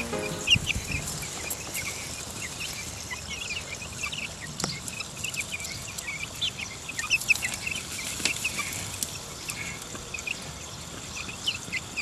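A flock of young chicks peeping continually, many short high chirps overlapping one another, with a few small clicks among them.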